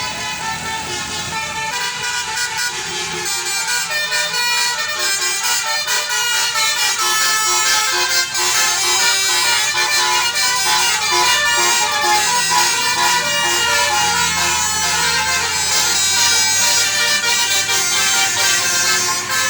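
A tour bus's telolet basuri musical air horn playing a quick, changing melody of many notes over the bus's running engine.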